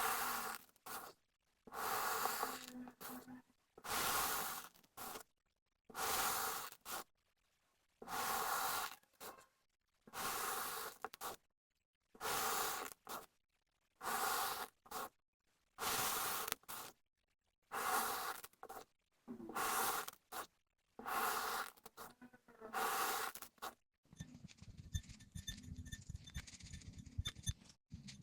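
Kinetic sand being scraped in a regular series of short strokes, about one every two seconds, with silence between them. Near the end the strokes give way to a fainter, continuous crackling.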